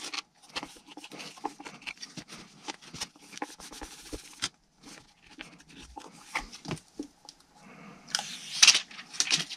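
Thin plastic protector film for a motorcycle instrument display being peeled and handled: irregular crinkling and rustling with small clicks, louder for a moment near the end.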